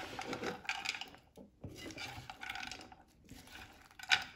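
A spoon stirring frozen peas through cooked minced meat in a pan, scraping and clinking against the pan, with one sharper knock about four seconds in.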